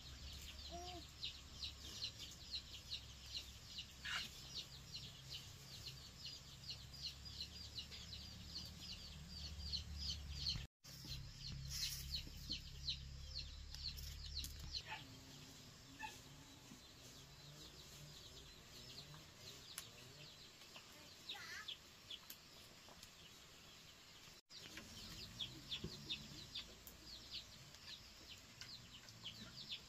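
Chickens peeping in a fast run of short, high, falling chirps, several a second. The chirps thin out in the middle and pick up again near the end, over a faint low hum that stops about halfway through.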